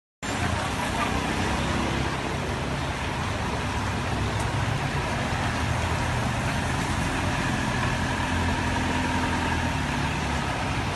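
Steady rain and wet street traffic, with a small car's engine idling close by as it stands at the curb.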